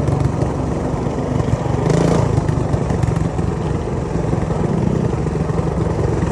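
Megamoto 212 minibike's single-cylinder four-stroke engine running at a steady throttle while riding along a dirt trail, heard from the rider's position. About two seconds in there is a brief rush of noise.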